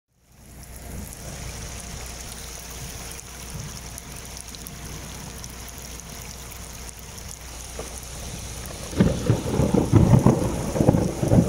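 Muddy rainwater runoff rushing over rocks in a shallow channel: a steady rushing hiss. From about nine seconds in, a much louder uneven low rumble comes and goes.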